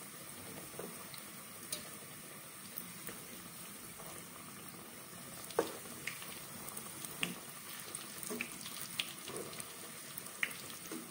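Samosas deep-frying in a pot of hot oil: a steady sizzle with scattered sharp clicks and pops as a fork turns them in the pot.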